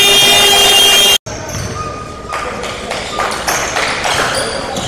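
A gym scoreboard's end-of-period horn sounds loud and steady for about a second, then cuts off abruptly. After a short gap, basketball game sounds follow in a large echoing gym: the ball bouncing and players' and spectators' voices.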